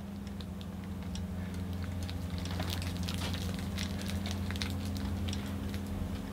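Steady low hum with faint, scattered crackles and rustles of handling as a potted plant is moved about close to the microphone; the crackles are thickest in the middle.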